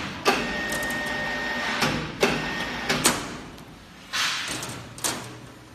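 Steel block clamp working on a row of hollow concrete blocks: its cylinder hisses with a faint high whine as it moves, and the steel frame gives several sharp clacks and clunks against the blocks.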